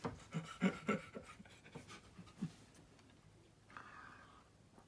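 A man laughing softly in short breathy chuckles, then taking a quiet sip from a glass near the end.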